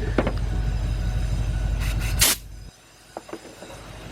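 A short, loud hiss of compressed air from an air blow gun about two seconds in, blowing out the spark plug well, over a steady low hum that stops suddenly just after. A few light handling clicks come before and after it.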